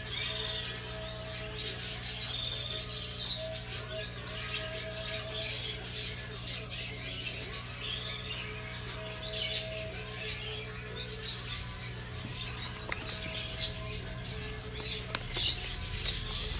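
Background music with small birds chirping repeatedly, over a steady low hum.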